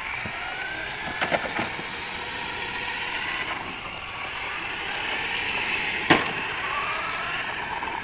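Small electric motors of toy radio-controlled cars whining as they drive, the pitch gliding up and down with the throttle. Two light clicks come about a second in, and one louder sharp knock about six seconds in.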